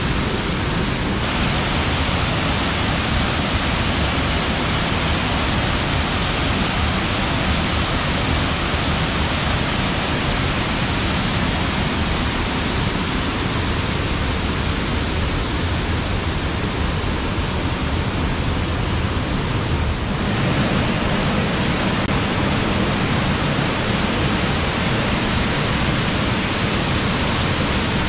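Waterfall pouring into its pool: a loud, steady rush of falling water, its tone shifting slightly about a second in and again about twenty seconds in.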